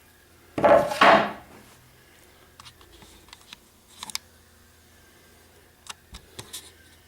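Wooden boards being handled on a workbench: a loud squeaky wood-on-wood scrape about half a second in, then scattered light knocks and clicks.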